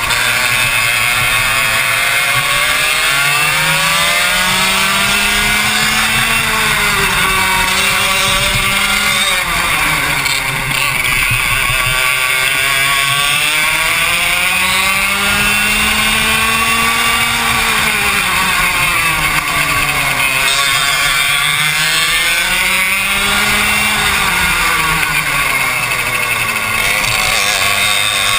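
Racing kart engine heard onboard at full race pace, its pitch climbing on each straight and dropping into each corner, rising and falling about four times.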